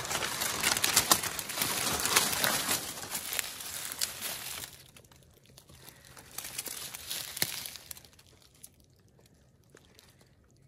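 Footsteps crunching and rustling through dry fallen leaves among saw palmetto, stopping about five seconds in, with a few more steps a second or two later.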